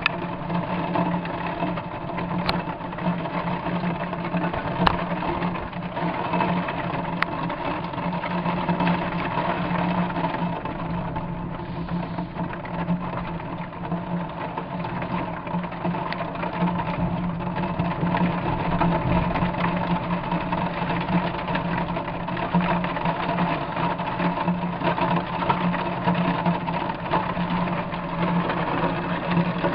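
Heavy rain drumming steadily in a downpour, with a few faint clicks in the first seconds.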